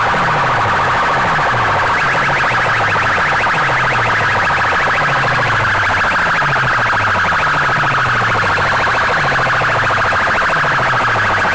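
Arrays of horn loudspeakers playing electronic, siren-like music at a loud, unvarying level. A low falling tone repeats about twice a second under a dense, shrill upper layer.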